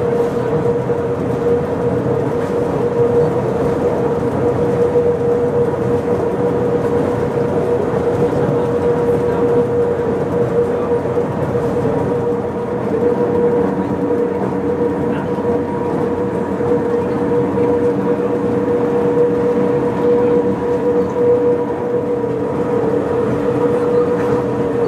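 Pilatus Railway electric cogwheel railcar running on the rack line: steady rumbling running noise with a constant tone over it, and a second, lower tone joining about halfway through.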